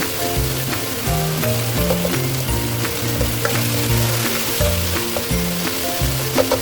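Chicken, mushrooms and onion sizzling as they are stir-fried in a hot pan, with occasional clicks of the stirring utensil, over background music.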